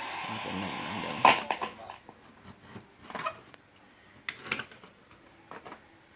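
A steady hiss that stops with a sharp click just over a second in, followed by a few light clicks and taps of small tools and parts being handled on an electronics workbench.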